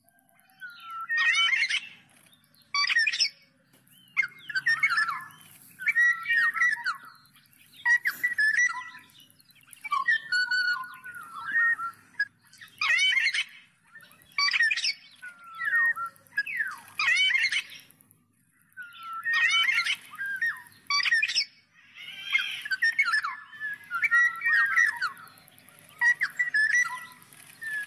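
Black-naped oriole calling and singing: a string of short phrases of fluty, sweeping and scratchy notes, one every second or two, with brief pauses between them.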